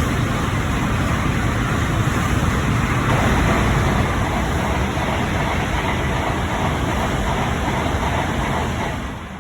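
Shinkansen bullet train passing through the station at speed without stopping: a loud, steady rush of air and wheel noise that falls away near the end.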